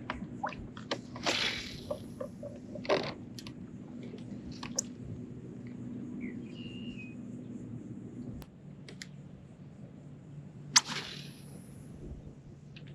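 Fishing from a kayak while working a twitch bait: scattered clicks and knocks of rod and reel handling, with a few swishes of casting, the loudest near the end. A steady low hum runs underneath and drops a little about two-thirds of the way through.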